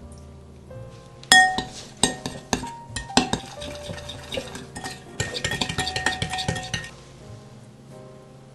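Utensil stirring and clinking in a mixing bowl: a sharp ringing clink, a few scattered knocks, then a run of quick stirring strokes that stops near the end. Soft background music underneath.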